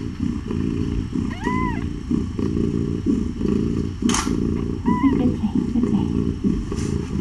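Mother cat purring steadily while nursing her newborn kittens. A kitten gives a short squeaky mew about a second and a half in and another about five seconds in, with a brief rustle just after four seconds.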